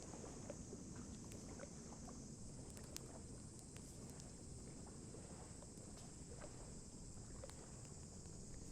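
Wood campfire crackling, with faint scattered pops over a steady low rumble.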